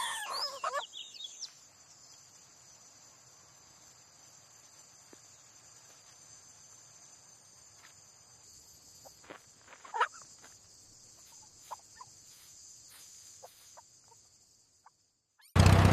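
Crickets chirping steadily, with a few short, weak clucks from a chicken, the loudest about ten seconds in. A loud sound starts right at the end.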